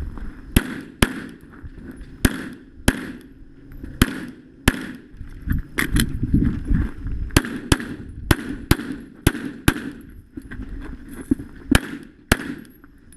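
Pistol fired about twenty times during a practical shooting stage, mostly in quick pairs of shots with short pauses between the pairs as targets are engaged.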